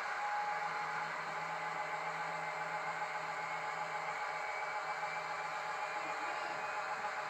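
H0-scale model ST44 diesel locomotive running slowly along the track, a steady mechanical whir with a low hum.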